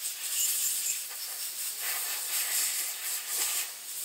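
Compressed-air blow gun hissing as it blows water off a freshly vapor-honed aluminum intake manifold to dry it, with small rises and dips in level.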